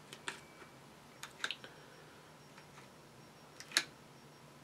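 A few light clicks and taps as painted plastic model tank wheels on sticks are handled and picked through in a holding block, a quick cluster a little over a second in and the loudest click near the end.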